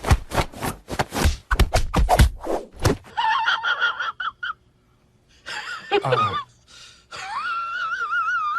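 A rapid clatter of knocks and taps for about three seconds, then a cat's high, wavering meows, ending in a long wavering yowl.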